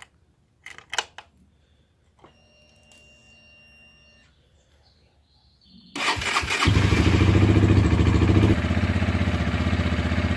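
Honda CG 150 Start single-cylinder motorcycle engine started on the electric starter about six seconds in, after a few clicks and a short faint whine. It catches at once and idles loud and even, settling a little lower after a couple of seconds.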